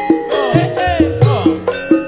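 Javanese kendang hand drums struck in a quick rhythm, about four to five strokes a second, many of the strokes sliding down in pitch. They play over the sustained ringing tones of a gamelan's bronze metallophones.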